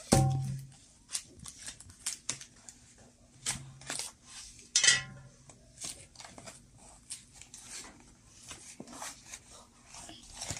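Cardboard box being handled and opened by hand: a string of small scrapes, taps and clicks, with a louder knock at the start and another about five seconds in.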